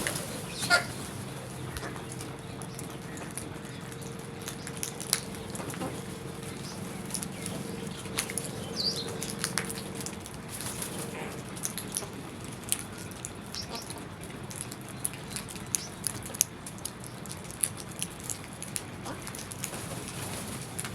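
Crows and other birds: a few short calls, wing flutters and many scattered sharp clicks, over a steady low hum. A steady tone runs underneath and stops about eleven seconds in.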